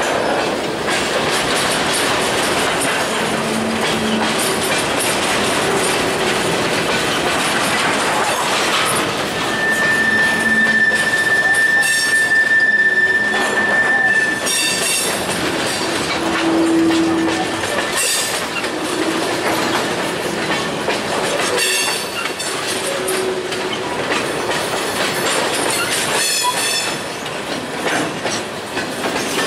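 Freight cars of a Wheeling & Lake Erie train rolling past close by: a continuous rumble and clatter of steel wheels on the rails. Wheels squeal as the train takes the junction, with one long steady squeal about ten seconds in lasting some five seconds, and shorter shrill squeals later.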